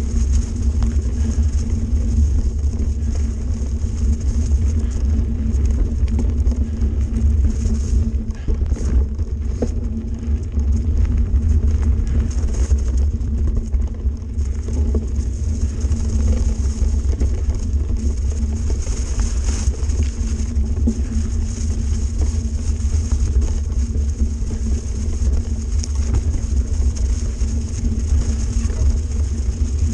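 Mountain bike riding over a leaf-covered dirt singletrack, picked up by a bike-mounted action camera: a steady, loud low rumble of wind and trail vibration on the microphone, with small knocks and rattles now and then as the bike goes over bumps.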